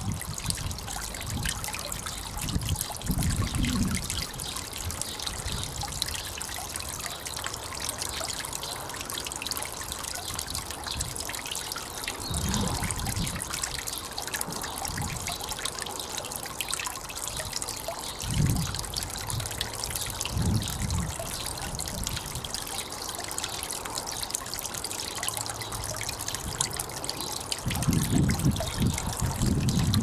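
Garden-pond waterfall: water trickling off a mossy stone ledge and splashing into the pond in a steady fine patter. Wind buffets the microphone in short low rumbles several times, strongest near the end.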